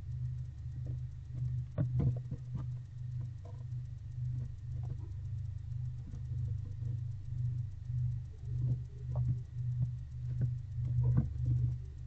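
Barn owl moving about in a wooden nest box: scattered light scratches and rustles of her feet and body in the bedding, over a steady low hum that pulses in a regular rhythm.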